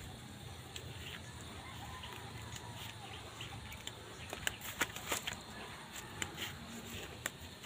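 Quiet rural outdoor ambience: a rooster crows faintly in the distance about two seconds in, and a run of light clicks and crackles follows in the second half.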